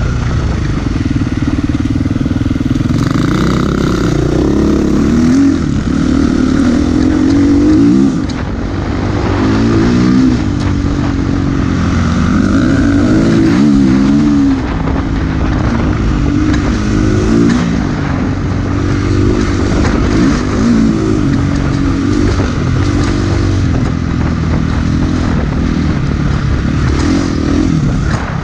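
A Husqvarna FE350's single-cylinder four-stroke engine, uncorked with a Power Bundle kit, running under load with its pitch rising and falling again and again as the throttle is opened and closed. Wind noise rushes over the GoPro microphone throughout.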